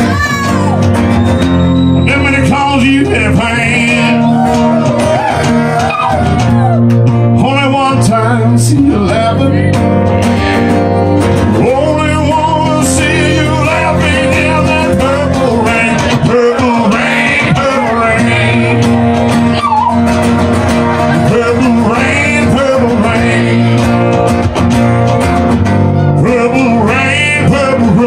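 Two acoustic guitars strummed while a man sings loudly, with vibrato on the held notes.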